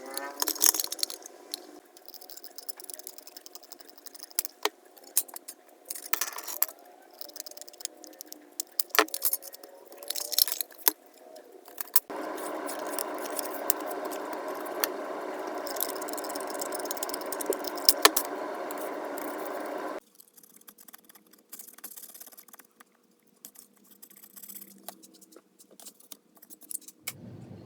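Small metal clicks, taps and rattles from a thin piece of sheet metal being handled and worked on a workbench. In the middle there is about eight seconds of a steady noise that starts and stops abruptly and is louder than the clicks.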